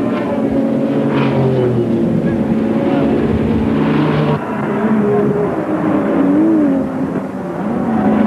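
Racing car engines running at high revs, with several engine notes rising and falling as the cars pass and shift. The sound drops in loudness briefly about four seconds in, and again near seven seconds.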